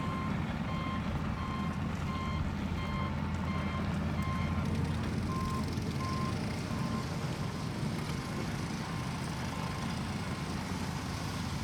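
Construction vehicle's reversing alarm: a steady series of evenly spaced beeps that stops about two-thirds of the way through, over a steady low rumble of machinery or traffic.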